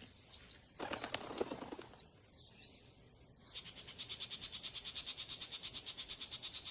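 Small birds chirping with short high chirps, with a brief rustle about a second in; about halfway a fast, even, rattling trill takes over, about a dozen pulses a second.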